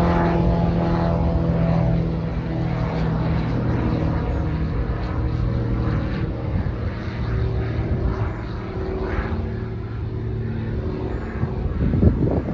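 Small twin-engine propeller plane flying overhead, its engines and propellers making a steady droning hum that slowly fades as it climbs away. A brief louder rumble comes near the end.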